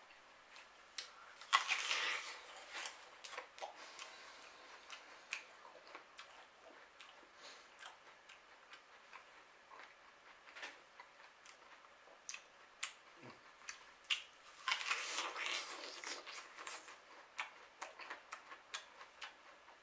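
Crisp apple being bitten and chewed: two crunchy bites, one near the start and one about three-quarters through, with small wet chewing clicks in between.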